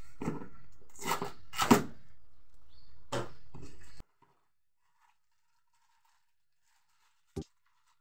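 Packing tape and cardboard flaps of a ceiling-fan box tearing and rustling as the box is pulled open, in three or four sharp rips. About halfway through, the sound cuts out abruptly to near silence.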